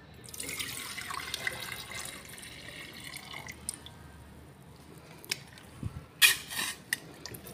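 Green solution poured through a filter into a glass beaker: a steady splashing trickle for about three seconds, then thinner dripping, with a short cluster of sharp knocks about six seconds in.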